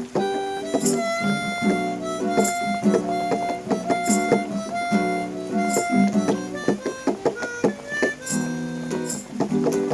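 Instrumental music: harmonica chords over plucked guitar, with a light accent about every 0.8 s.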